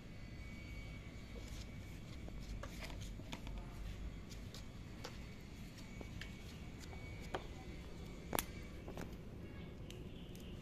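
Faint scattered clicks and scratches of kittens moving about, claws on a plastic cat bed, over a low steady rumble; one sharper click comes about eight seconds in.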